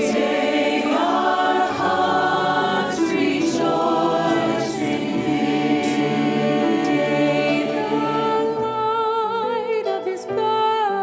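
Choir singing a Christmas worship song, voices holding long notes with vibrato.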